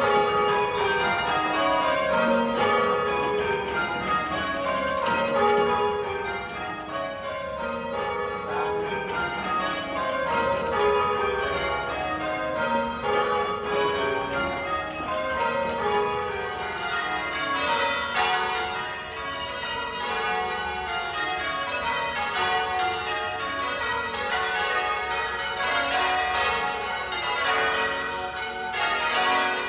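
A ring of church tower bells being rung by a band of ringers on ropes. The bells strike one after another in runs down the scale, repeating without a break.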